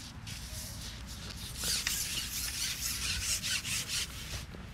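A long carbon fishing pole being pushed out over the water, sliding and rubbing in a run of scraping strokes that start about a second and a half in and last roughly three seconds.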